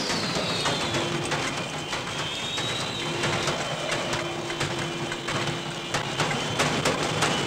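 Metal dustbin lids being banged in protest noise during a general strike, making repeated sharp clangs. Over them runs a high wailing tone that drops in pitch at the start, then wavers up and down.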